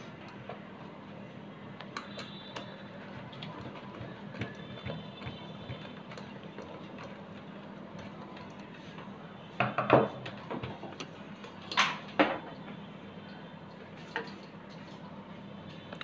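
Hand-handling clatter as the PVC-pipe fan parts and tools are worked: scattered light clicks, with louder knocks about ten and twelve seconds in and a smaller one near the end, over a steady low hum.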